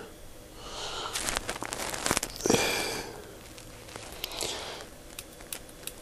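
Three soft breaths close to the microphone, about every two seconds, with faint clicks and rustles from a mechanical pencil being handled in the hand.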